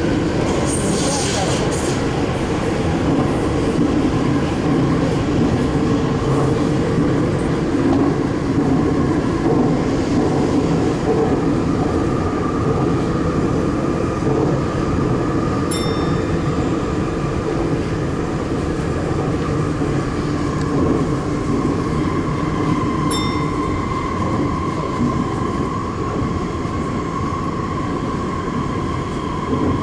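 Sendai Subway Tozai Line 2000 series linear-motor train running through a tunnel, heard from the cab: a steady rumble of wheels on rail, with a high steady whine growing in about halfway.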